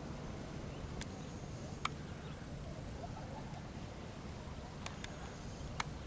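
Outdoor waterside ambience: a steady low rumble of wind and water, with faint distant gull calls about halfway through and five sharp clicks scattered across it.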